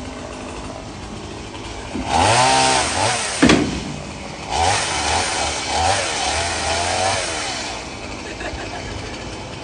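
Chainsaw revving in two bursts, the first about two seconds in and a longer one from about four and a half seconds, its pitch rising and falling with the throttle as it cuts limbs from a fallen tree. A sharp knock comes between the bursts.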